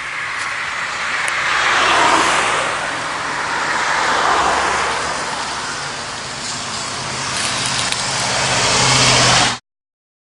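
Exceed RC MaxStone rock crawler driving over rough ground: its motor and drivetrain running under a dense noise of tyres on the ground, swelling louder and softer several times. It cuts off suddenly near the end.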